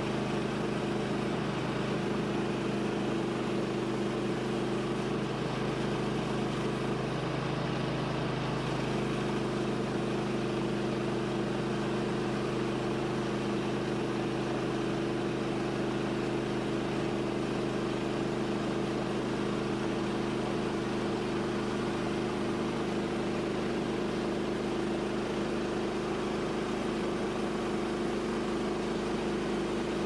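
The engine of a Woodland Mills HM130MAX bandsaw sawmill running steadily at one even pitch while the band blade cuts through a large ponderosa pine log.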